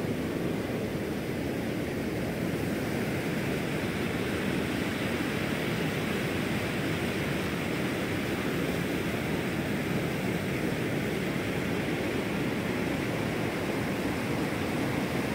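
Shallow mountain stream rushing over rocks and small rapids: a steady, even rush of water.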